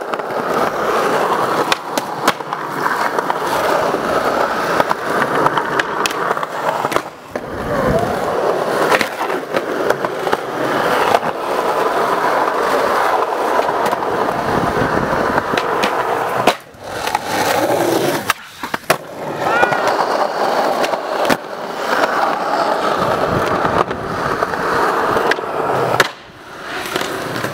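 Skateboards rolling on concrete: a steady wheel rumble broken many times by sharp clacks of tail pops and boards landing.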